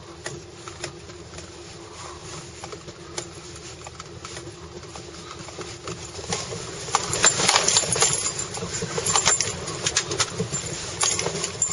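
Dense, irregular rattling and clattering inside a stopped car shaken by a strong earthquake, getting louder about six seconds in.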